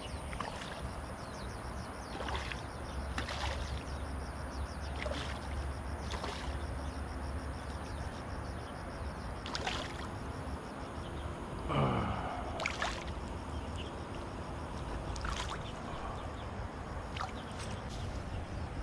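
A hooked tilapia splashing and thrashing at the surface of the water as it is played on a hand pole: short, scattered splashes over a steady low rumble. There is one brief falling tone about twelve seconds in.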